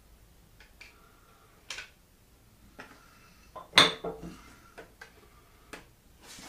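Metal tools and steel machine parts clinking and knocking together as the grinder is worked apart: a string of scattered clicks, the loudest about four seconds in with a brief ring.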